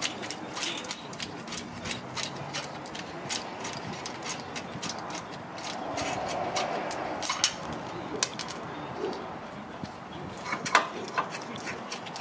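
Irregular light metallic clicks and taps from hand work on a rear disc-brake caliper as its mounting bolts are worked off and the caliper is handled.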